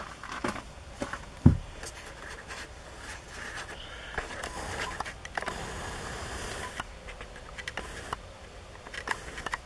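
Handling noise in a truck cab: scattered light clicks and scraping, with one dull thump about a second and a half in.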